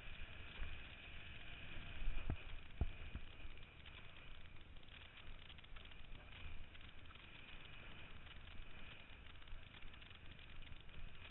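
Wind buffeting the microphone of a head-mounted camera while kitesurfing, with a steady rush of water under the board. Three short low thumps come about two to three seconds in.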